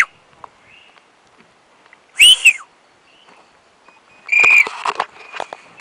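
Loud human whistles calling an African fish eagle down to a thrown fish: three short whistles, one rising and falling at the start, another about two seconds in, and a held, level one about four and a half seconds in.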